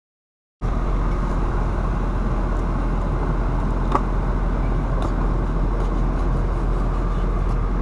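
A steady low rumble and hiss of outdoor background noise starts abruptly under a second in, with a few faint clicks and one sharper click about four seconds in.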